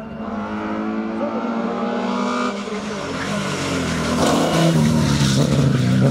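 Rally car engine running at high revs on a hill-climb stage, growing louder from about four seconds in as the car comes closer.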